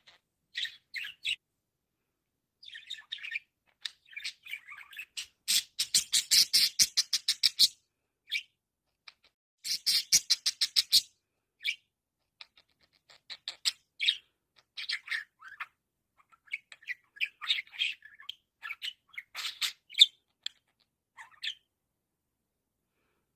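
Budgerigar chattering and chirping in short, high-pitched calls, with two fast runs of clicking notes, one about six seconds in and one about ten seconds in.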